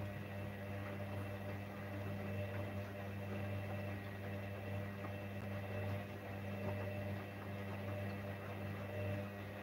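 Gorenje front-loading washing machine turning an overloaded drum of dark laundry: a steady low hum that rises and falls gently about once a second.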